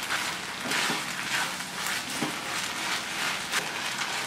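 Vermicelli in sugar syrup sizzling in a nonstick pan as a spatula stirs and scrapes through it, with scraping strokes about twice a second over a steady sizzle; the mixture is being cooked down until it thickens.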